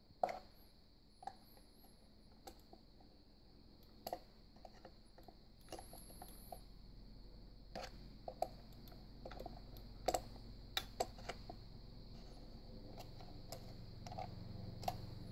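Plastic parts of a Bostitch QuietSharp Glow electric pencil sharpener being handled as its round blade assembly is fitted into the housing: irregular sharp clicks and knocks, loudest near the start and again around the middle.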